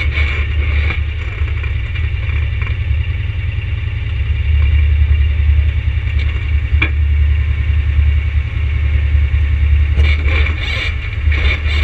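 ATV engine running steadily at low speed, a constant low rumble.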